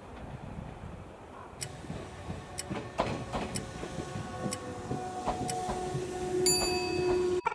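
A Nishitetsu electric commuter train pulls into the platform, growing louder as it nears. High, steady squealing tones set in near the end as it brakes. A clock-like tick sounds about once a second over it.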